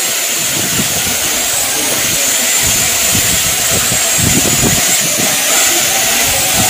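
Foam toy quadcopter drone flying, its small propellers giving a steady high whine over a rushing hiss.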